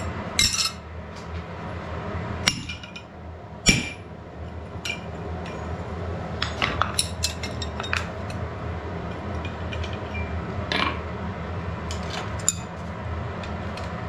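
Irregular metallic strikes and clinks at a blacksmith's anvil as a hot bar of phosphorus iron is cut with a chisel and the pieces are shifted with tongs. The loudest strikes come about half a second and about four seconds in, with a quick run of clinks around seven seconds, over a steady low hum.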